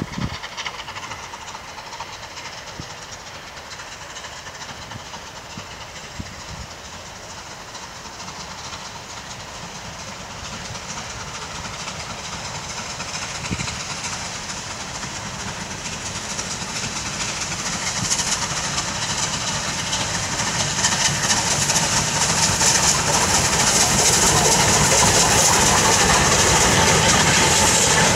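Steam locomotive hauling a train of goods vans as it approaches and draws level: the sound of the engine and the clatter of wheels on the rails grow steadily louder, loudest near the end.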